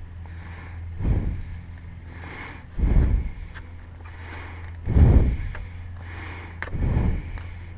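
Breath puffs hitting the microphone about every two seconds, over a steady low hum, with a few faint clicks of tools or parts.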